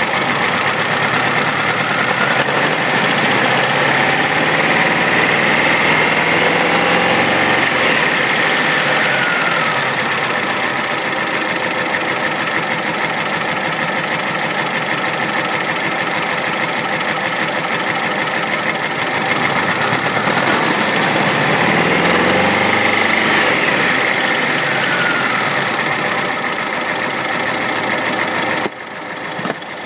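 Porsche 912's air-cooled flat-four engine running, revved up slowly and let back down to idle twice: once a couple of seconds in and again about twenty seconds in.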